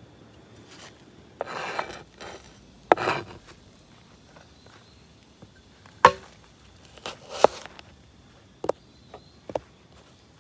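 Broad kitchen knife slicing small red onions on a plastic cutting board: a handful of irregular chops, the blade knocking sharply on the board, with short scraping cuts between.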